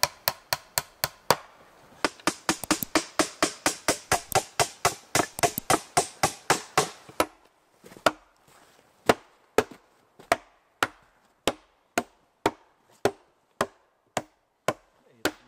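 Hammer driving nails into wood. A quick run of blows, about four or five a second, lasts some seven seconds; then, after a short pause, steady blows come about two a second.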